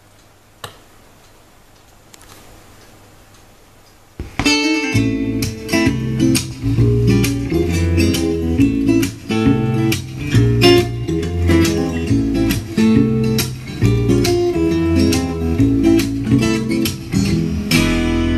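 Faint room tone with a single click, then about four seconds in a song's instrumental intro starts: plucked and strummed guitar over a bass line.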